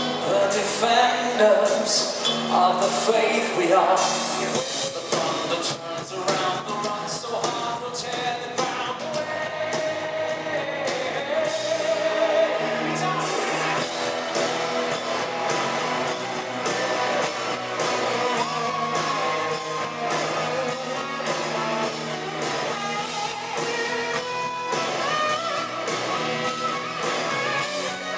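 Live pop-rock band music with singing, recorded from the audience at a concert; a vocal line is clearest in the first few seconds over a full band with guitar.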